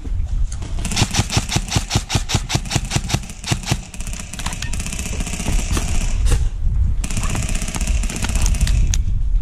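Airsoft guns firing: a run of sharp shots at several a second, then denser crackling, and a fast full-auto burst near the end, over a steady low rumble on the microphone.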